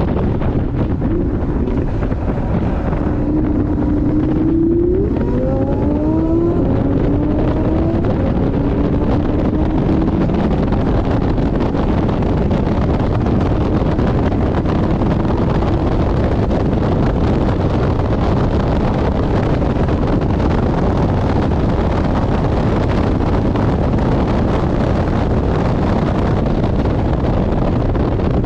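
Porsche 718 Boxster GTS at track speed, heard onboard: heavy wind buffeting on the microphone over road roar. The engine note climbs through the revs, breaks for a gear change about five seconds in, climbs again, then levels off and is lost under the wind.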